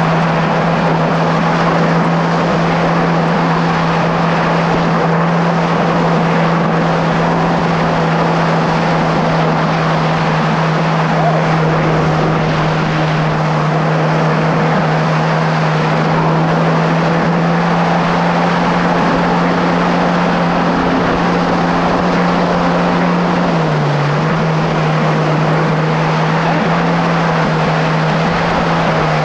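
Kawasaki SX-R 1500 stand-up jet ski's four-cylinder four-stroke engine running steadily at speed, with water rushing past the hull. Its note drops a little about five seconds from the end.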